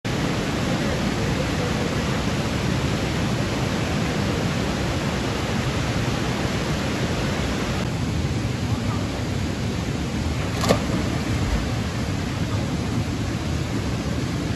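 Steady rushing roar of a waterfall's falling water, with one short click about eleven seconds in.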